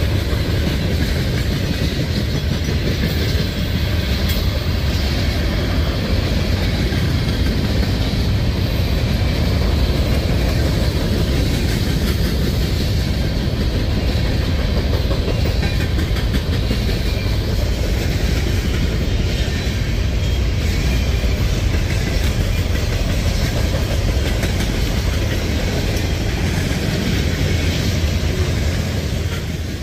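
Freight cars of a CSX manifest train rolling past at trackside, a mix of tank cars, steel coil cars, a gondola and covered hoppers: steady, loud rumble of steel wheels on rail.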